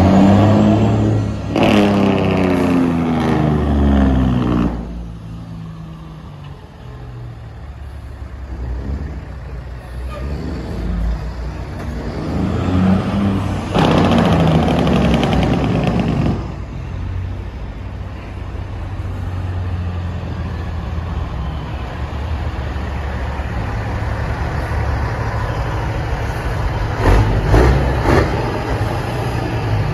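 Parade trucks with heavy diesel engines driving slowly past one after another, a steady low rumble. The engine note falls as one truck passes in the first few seconds, a truck goes by close and loud about halfway through, and a couple of short sharp sounds come near the end.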